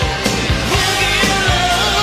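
Rock music with a sung vocal and a steady drum beat of about two hits a second.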